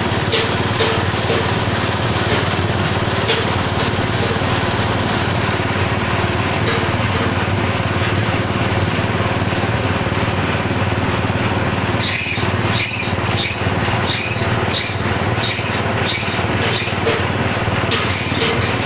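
Pellet-making machine converted from a meat grinder, running steadily under its motor. In the last third a high-pitched chirp joins, repeating about one and a half times a second.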